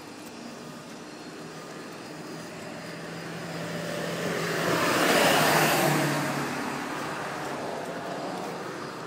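A car driving past on the street: engine hum and tyre noise swell to their loudest about five seconds in and then fade away.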